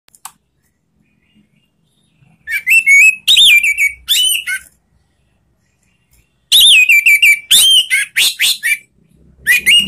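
Orange-headed thrush singing loud, full phrases of rapid, sliding whistled notes in three bursts: the first about two and a half seconds in, the second about six and a half seconds in, and the third starting near the end.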